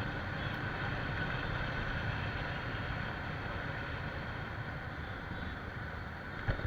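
Motorcycle riding along at a steady pace: its engine running under a steady rush of wind on the rider's microphone, with a short knock near the end.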